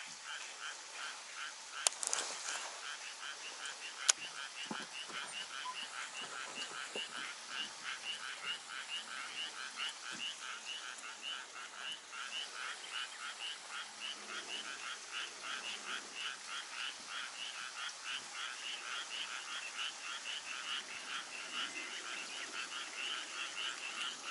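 A chorus of frogs calling in a steady pulsing rhythm, roughly three pulses a second. Two sharp clicks come about two and four seconds in.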